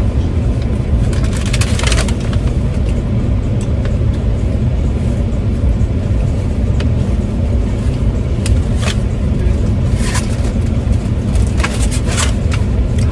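Steady low rumble of a car running, heard inside the cabin, with scattered small clicks and rustles, several of them near the end.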